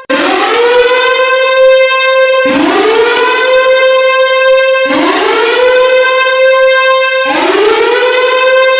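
Emergency alert alarm siren: a steady high tone held under a wail that sweeps up from low and levels off, repeating about every two and a half seconds.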